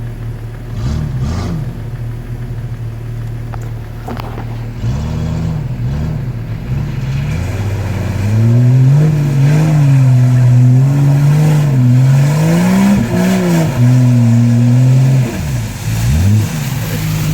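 4.0-litre engine of an off-road vehicle running steadily, then revving up and down over and over from about five seconds in, louder from about eight seconds, as it is driven through mud.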